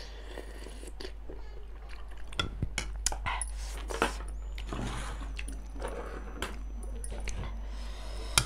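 Person eating chicken thukpa: chewing and slurping hot noodle soup, with scattered small clicks.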